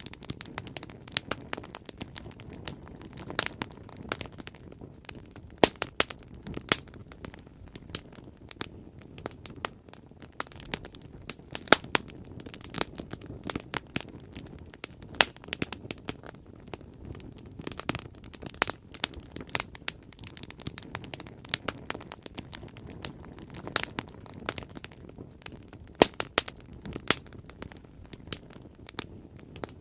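Bonfire crackling: irregular sharp pops and snaps, several a second, over a soft steady low rush of the flames.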